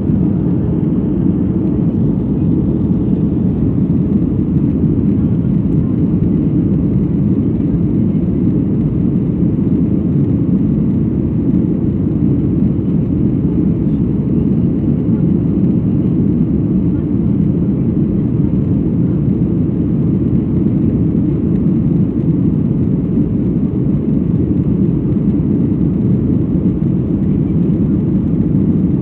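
Steady low roar of a jet airliner's cabin in cruise: engine and airflow noise heard from inside the cabin, even and unchanging throughout.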